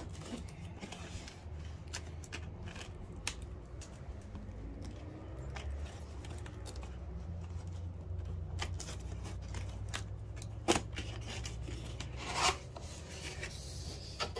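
A glossy cardboard box being opened by hand: fingers scratching and picking at the clear tape seal on the flap, then the tape tearing away and the flap pulled open, with two sharper pops near the end. A low steady rumble runs underneath.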